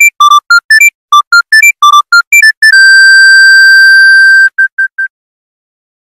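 Panasonic mobile phone ringtone: a fast melody of short, pure electronic beeps, about five a second, ending in one held note of nearly two seconds and three quick beeps on the same pitch.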